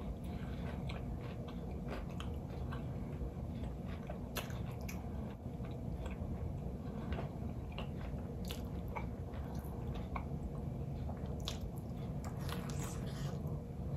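Close-miked eating of breaded fried catfish: biting and chewing with irregular crisp crunches and wet mouth sounds, one more bite near the end. A steady low hum runs underneath.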